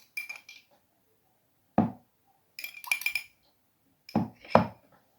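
Kitchenware clinking and knocking in a small frying pan: a few short clinks with a brief metallic ring near the start and around three seconds in, and duller knocks about two and four seconds in.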